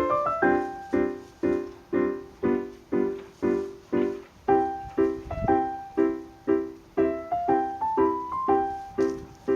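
Background music: a piano or keyboard tune with chords struck about twice a second under a simple melody.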